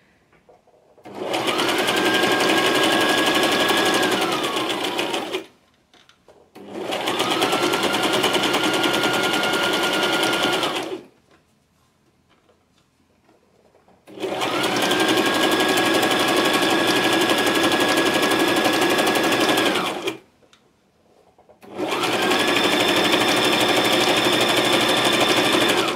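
Electric domestic sewing machine running a close zigzag stitch in four runs of a few seconds each, with short pauses between them. In each run the motor whine rises as it starts and falls away as it stops.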